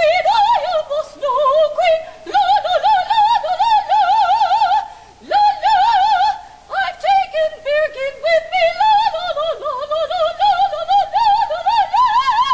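A high voice singing in an exaggerated operatic style with a wide, fast vibrato, in several held phrases separated by short breaths and climbing higher near the end.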